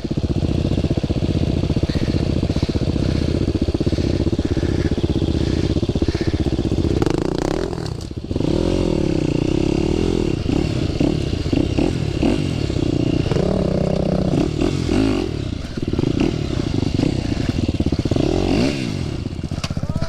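Dirt bike engine running under load on a trail, its revs rising and falling again and again as the throttle is worked.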